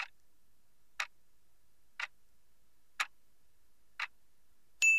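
Clock-tick countdown sound effect: five ticks, one a second, marking a five-second answer time. A bell-like ding begins right at the end.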